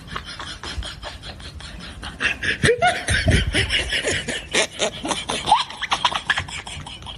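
People laughing in rapid bursts, louder from about two seconds in.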